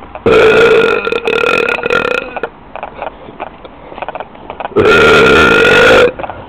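Two long, loud burps, each held at a steady pitch. The first lasts about two seconds and the second, starting about five seconds in, lasts just over a second.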